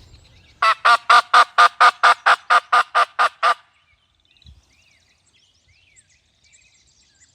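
Turkey call worked by a hunter close to the microphone: a loud, even run of about thirteen hen-turkey yelps, about four a second, then stopping. It is calling to toms that have just gobbled, to draw them in. Faint songbird chirps follow.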